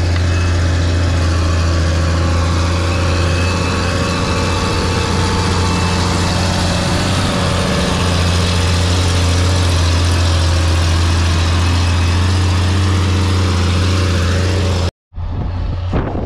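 Case IH Steiger 9350 articulated tractor's diesel engine running steadily under load as it pulls a cultivator close by, a loud, even low drone. Near the end the sound cuts off and gives way to wind buffeting the microphone.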